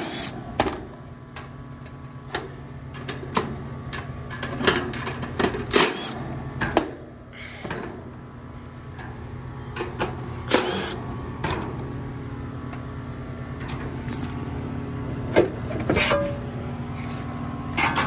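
Cordless impact driver backing out the screws of a Rheem condenser's top panel in several short bursts, with clinks of screws and sheet metal, over a steady low hum.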